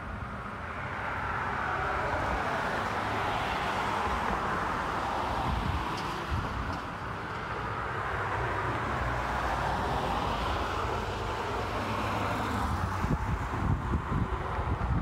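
Road traffic passing by, two vehicles swelling and fading in turn. Wind buffets the microphone near the end.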